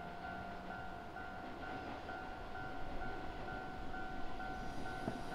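Low rumble of electric trains at a railway station platform, under a repeating electronic beep that sounds about twice a second. Right at the end a faint rising hum begins.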